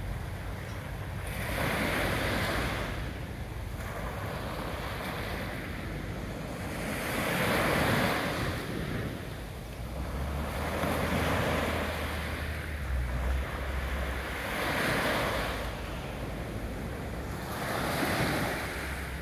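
Small waves on a calm sea breaking and washing up a sandy beach, swelling and fading about five times, every three to four seconds.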